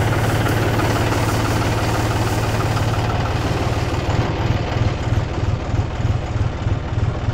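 Tractor's diesel engine running at low speed while it pulls a mulching-film laying machine along a bed. Its steady hum turns more uneven and pulsing over the last few seconds.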